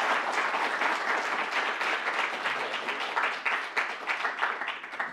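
Audience applauding with dense clapping that slowly tapers off toward the end.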